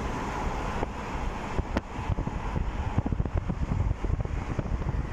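Road and traffic noise from a car moving along a highway, with wind buffeting the phone's microphone in a jagged low rumble that gets rougher about two seconds in.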